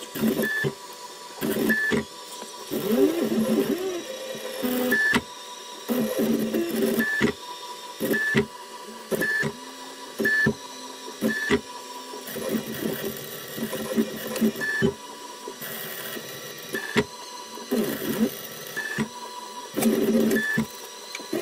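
A DIY CNC engraving machine's stepper motors whining in stop-start moves, the pitch gliding up and down with the speed of each move, as the engraving bit traces a pattern across the glass back of a phone. Short high chirps recur about every second or so.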